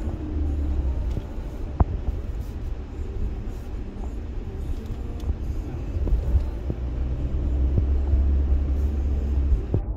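Low, steady rumble of an armoured 2021 Toyota Hilux Conquest pickup driving on the road, heard from inside its cabin, with a few light clicks and knocks, the sharpest about two seconds in.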